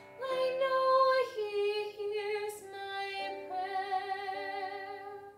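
Teenage girl singing the slow closing phrase of a musical-theatre ballad in long held notes, over accompaniment holding sustained chords. The voice and music fade and stop about five seconds in, ending the song.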